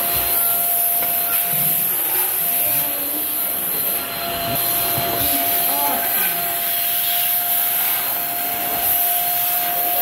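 Corded Shark Pro handheld vacuum running steadily with a high whine, its crevice nozzle rubbing and scraping over the wooden floor of a cabinet and drawer.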